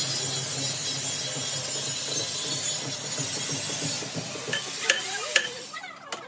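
Metal lathe running, spinning a steel shaft on a large screw rotor: a steady hum with a hiss above it. About four seconds in it turns quieter and uneven, with two sharp clicks.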